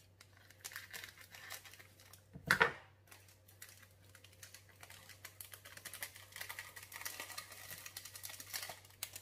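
A small vanilla sachet crinkling as it is cut open and shaken out over a mixing bowl, with a string of small crackles in the second half. One short, sharp knock or snip about two and a half seconds in is the loudest sound.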